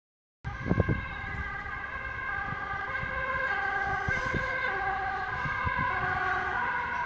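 Several Dutch emergency-vehicle two-tone sirens sounding at once, overlapping at different pitches, starting about half a second in. Low rumble underneath, with a few low thumps just after the start.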